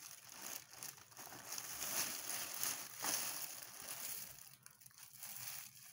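Plastic bags and packaging rustling and crinkling unevenly as wrapped kitchen utensils are handled.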